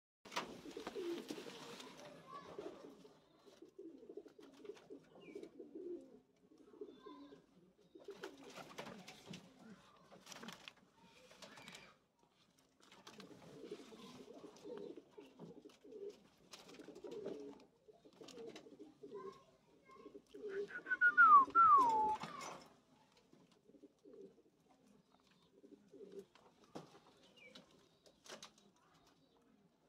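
Guinea pigs making soft, low, short calls over and over. About 21 seconds in, one louder squeak comes twice, sliding down in pitch each time.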